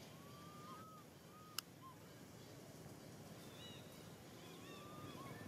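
Faint, high whistled animal calls: a long rising whistle ending in a short hooked note, heard near the start and again near the end, with small higher chirps between. One sharp click about a second and a half in.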